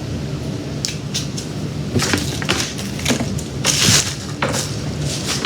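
Kitchen handling sounds: a handful of short clacks and scrapes, like dishes or utensils being moved, clustered in the middle, over a steady low hum.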